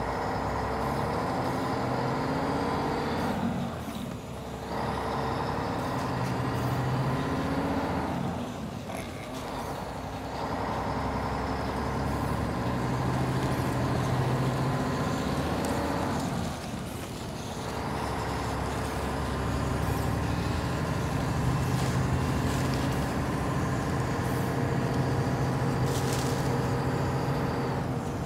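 Small electric drive motor and gearbox of a cardboard RC tow truck running as it pulls another truck, with the sound dropping away briefly about 4, 9 and 17 seconds in before picking up again.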